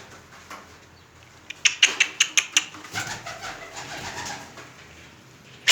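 Domestic pigeons cooing, with a quick run of sharp clicks or taps in the middle.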